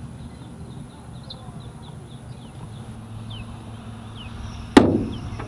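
One sharp pop near the end as a fabric strength tester pressed into the underside of an Albatros D.Va's wing breaks through the fabric, which gives way at under 5 pounds: the fabric is rotten. Faint bird chirps and a steady low hum run beneath.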